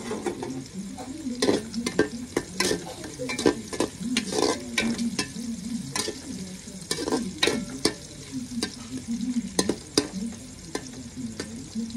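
Metal ladle stirring onions and green chillies frying in oil in an aluminium pot, scraping and clinking against the pot at irregular intervals over a steady sizzle.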